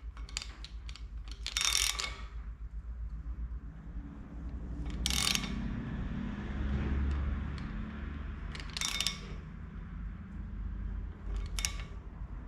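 Socket ratchet on the crankshaft bolt, clicking on its return swings as the crank of a V6 engine fitted with a degree wheel is turned by hand. Four short bursts of fast clicks come about every three seconds.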